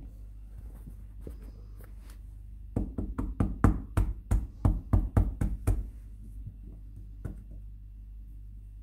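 A hand patting quickly on the back of an upturned metal mesh sieve that is pressed onto a circle of wet paper pulp on a cloth towel, squeezing the excess water out of a handmade paper sheet. About three seconds in comes a run of knocks, about five a second for some three seconds, followed by a few fainter taps.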